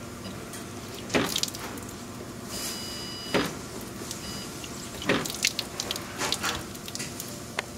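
Water running from a wall-mounted bottle-filling station while hands knock and press against its metal front, several sharp knocks over the steady hiss. A thin high tone sounds briefly near the middle.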